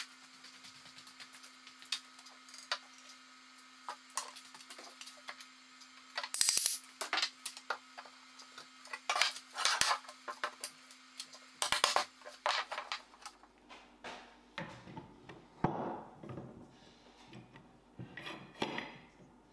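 Wooden leg frames knocked and set down on a workbench in a series of scattered knocks and clatters over a steady hum, then near the end the metal bar and jaws of a pipe clamp clink as it is fitted across a frame.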